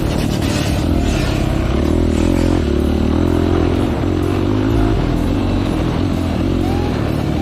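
Off-road vehicle engine running under varying throttle on a trail, with clattering from the machine over rough ground.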